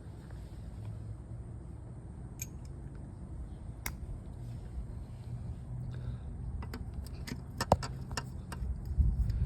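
Scattered sharp metallic clicks and clinks of hand tools and bolts during motorcycle crankcase disassembly, coming more often in the second half with one louder clink, over a steady low rumble.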